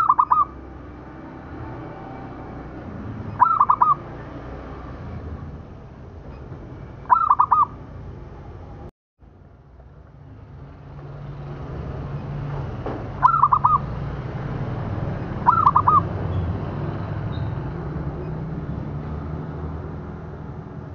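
Zebra dove (local perkutut) cooing: five short calls, each a quick run of three or four notes, spaced a few seconds apart over a steady low background hum. The sound drops out for a moment near the middle.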